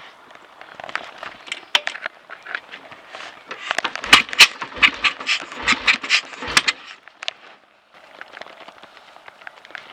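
Clicks, knocks and scraping from handling as the rider gets ready on the motorcycle before starting it, with a cluster of loud knocks between about four and seven seconds in. The engine is not yet running.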